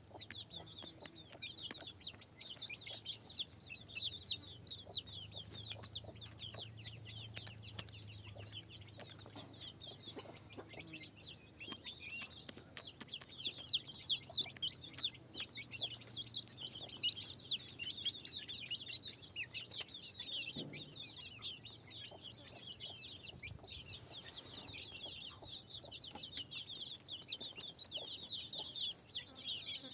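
A flock of chickens calling: many short, high calls overlapping in a dense, unbroken stream, over a faint low hum.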